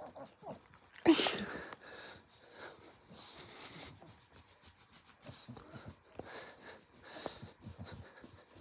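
Bulldog making its humming, snuffling breathing noises: a run of short, irregular breaths through the nose, with one loud, sharp burst of breath about a second in.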